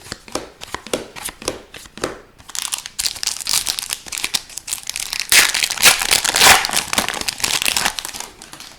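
A hockey card pack's foil wrapper being torn open and crinkled. It starts with scattered light clicks, then turns to dense crinkling that is loudest in the middle.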